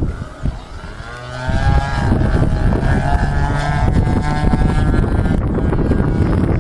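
Model aircraft engine buzzing as the plane flies past, its pitch rising about a second in and then wavering before fading, with heavy wind buffeting on the microphone.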